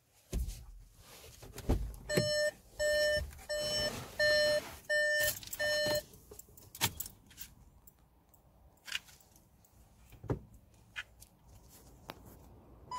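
Electronic warning beeper sounding six even beeps, about one and a half a second, each a third of a second long, starting about two seconds in. Scattered clicks and handling knocks come before and after the beeps.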